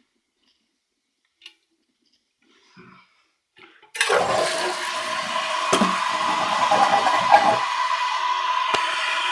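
Toilet flushing, starting suddenly about four seconds in after a few faint clicks, then a steady rush and hiss of water as the tank refills through its newly fitted ballcock fill valve.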